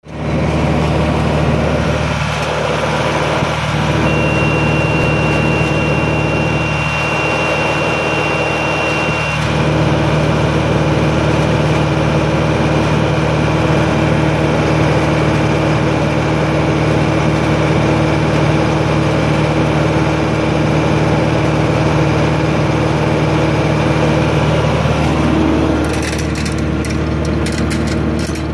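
Tractor engine running steadily at a constant speed, a deep even hum heard from inside the cab. A few seconds in, a thin high whistle sounds for about five seconds; near the end the hum thins and quick crackles come in.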